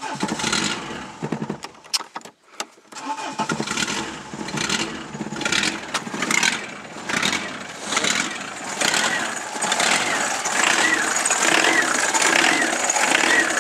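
Peugeot 205's XUD diesel engine cranking on the starter for a cold start with newly fitted glow plugs. It stops briefly after about two seconds, then catches and runs with a pulsing, uneven beat that grows steadier and louder. The engine is running on waste oil.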